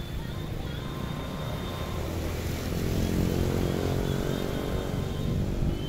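Jet airliner engines rumbling, growing louder from about halfway through as a low droning tone rises out of the noise.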